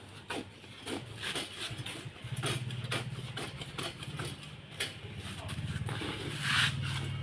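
Electric sewing machine stitching in short runs, its motor and needle starting and stopping several times from about two seconds in, with scattered sharp clicks between runs.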